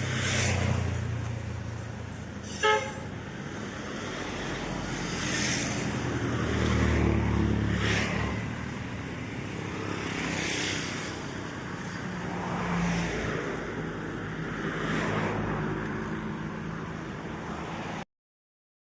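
Road traffic passing close by, vehicles going past one after another in swells of tyre and engine noise, with one short horn toot about three seconds in. The sound cuts off abruptly just before the end.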